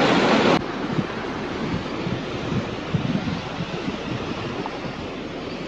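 Rushing mountain stream pouring over boulders, cut off suddenly about half a second in. Then a softer steady hiss with wind buffeting the microphone in low, irregular gusts.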